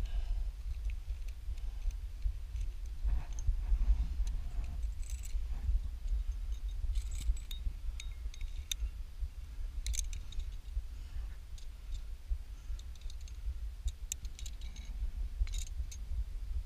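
Metal climbing gear (carabiners and trad protection racked on a harness) clinking and clicking irregularly as the climber moves up a crack, over a steady low rumble.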